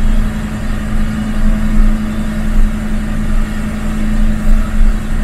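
MAN expedition truck's diesel engine pulling steadily in a low gear, heard from inside the cab: a constant-pitched hum over a heavy low rumble.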